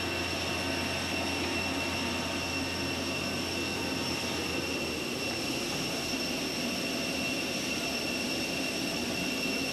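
Steady jet aircraft whine: a high-pitched tone held over a broad rushing noise. A low hum underneath fades out about halfway through.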